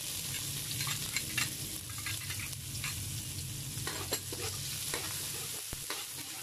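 Chopped onion and garlic sizzling in hot oil in a metal wok, with a metal spoon stirring and scraping against the pan in scattered clicks.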